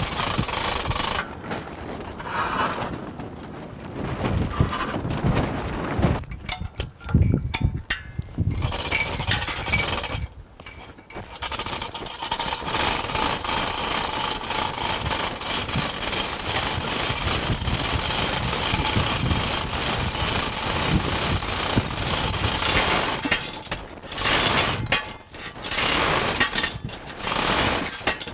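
Hand chain hoist being pulled to lift a heavy three-phase electric motor: chain rattling through the hoist with a ratcheting clatter, in long stretches of pulling broken by a few short pauses.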